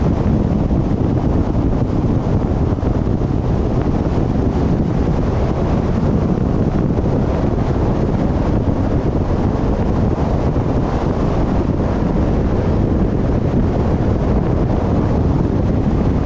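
Steady low rumble of wind buffeting the microphone of a GoPro action camera on a moving car, mixed with road noise.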